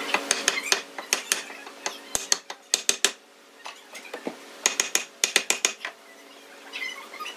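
Carved wooden wheel turning on its wooden stand, giving sharp wooden clicks and knocks in two irregular bursts, over a faint steady hum.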